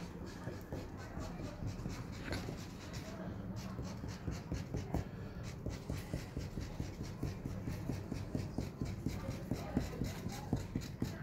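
Thick marker tip scratching quick short dashes onto a large sheet of paper, several strokes a second, the strokes getting sharper and more distinct near the end.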